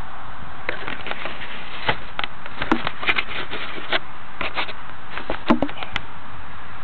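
Handling noise on a small onboard flycam: fingers rubbing, tapping and knocking on the camera, heard as irregular clicks and knocks over a steady hiss.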